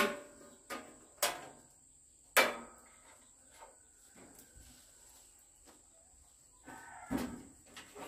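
A few scattered sharp knocks or clicks, the loudest about two and a half seconds in, against a faint steady high-pitched whine.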